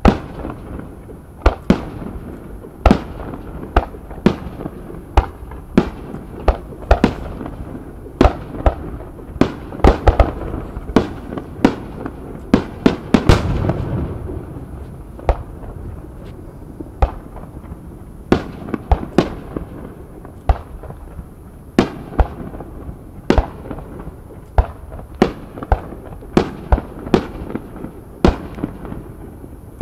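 Aerial fireworks shells bursting in an irregular series of sharp booms, about one or two a second. The booms come thickest just before the middle, where the loudest one trails off into a longer rumble.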